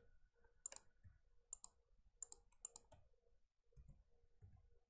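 Faint, irregular clicks of a computer mouse and keyboard keys, about ten in all, over near silence with a faint steady hum.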